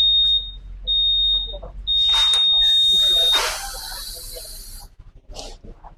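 Motorcycle smart-key system buzzer sounding a high, steady beep three times, the last one longest, during its second beep sequence: the signal that the smart-key data is syncing with the ECM after a remap. A burst of hiss overlaps the last beep.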